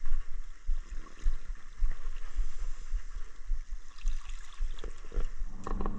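Water lapping and gurgling against a small boat's hull, with irregular low thumps. A steady low hum comes in near the end.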